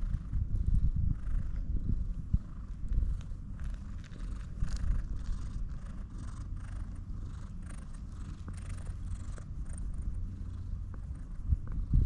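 Stray brown-tabby-and-white cat purring steadily as it is stroked.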